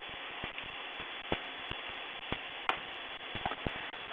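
Computer keyboard keys tapped one at a time at an irregular pace, a scattering of single clicks, over a steady background hiss.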